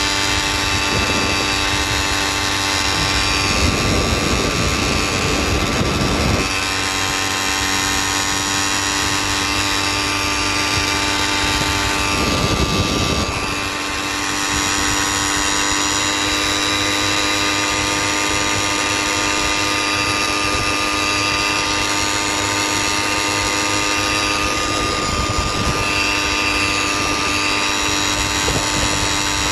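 Motorized bicycle's small engine running steadily at cruising speed, holding one pitch. Two stretches of louder rushing noise come over it, a few seconds in and again around the middle.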